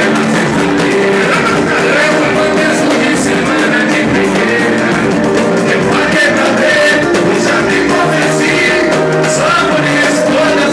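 Pagode-style samba music with singing over the band, the repique de mão (a hand-played Brazilian drum) striking a busy rhythm among the percussion.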